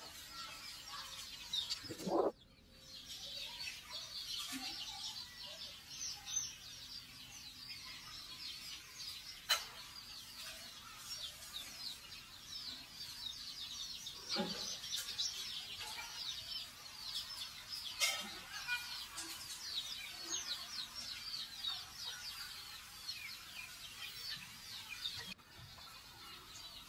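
Many small birds chirping busily and without pause, with a few sharp clicks and a couple of short falling cries scattered through.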